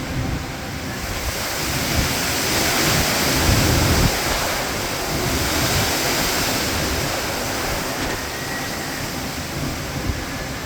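Storm wind gusting hard against the phone's microphone: a rushing that swells about a second in, is loudest around four seconds, then slowly eases off.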